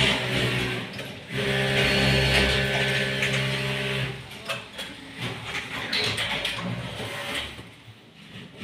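Sewing machine stitching: a steady motor hum for a few seconds, then quieter, uneven running that dies down near the end.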